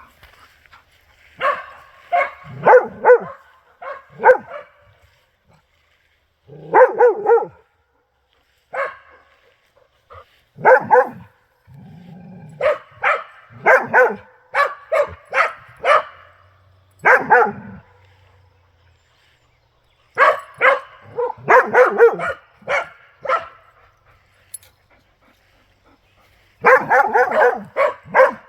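A dog barking repeatedly in bursts of several sharp barks, with pauses of a second or two between bursts.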